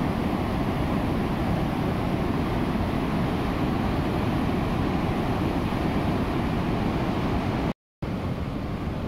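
Whitewater rapids of the Jinsha River rushing and crashing around boulders in a narrow gorge: a loud, steady roar. The sound cuts out for a split second near the end.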